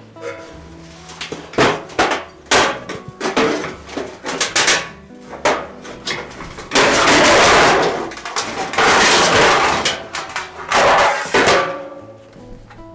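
Sheet-steel quarter panel being cut out: a run of sharp metallic knocks, then three loud bursts of a power cutting tool going through the steel. Faint background music plays underneath.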